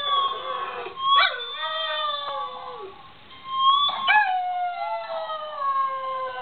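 Greyhound howling, the long 'roo' greyhounds give, set off by electric guitar notes that ring alongside it. Two long howls start about a second in and about four seconds in, each sliding down in pitch.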